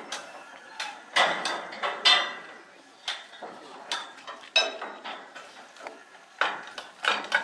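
Irregular sharp metallic clanks and knocks, some ringing briefly, the loudest about one and two seconds in. This is metal striking metal as a derailed 12¼-inch gauge steam locomotive is worked back onto the rails of a steel turntable.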